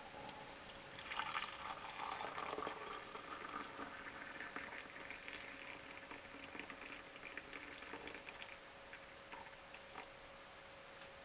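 Hot liquid poured in a stream into a ceramic mug, starting about a second in and tailing off near the end.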